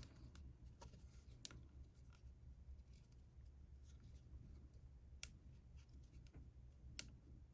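Near silence: room tone with a few faint, sharp ticks from a crochet hook and yarn being worked.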